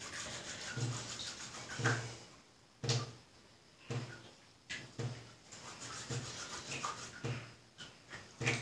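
Hands rubbing plant material from a tree together to work it up as a soap: short rubbing strokes that repeat about once a second.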